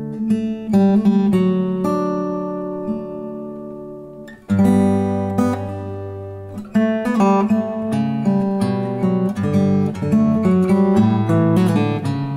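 Takamine F-360S steel-string dreadnought acoustic guitar played fingerstyle, picking a melody over ringing chords. A chord is left to ring and fade for a couple of seconds, then a strong bass-and-chord stroke comes in about four and a half seconds in, followed by busier picking.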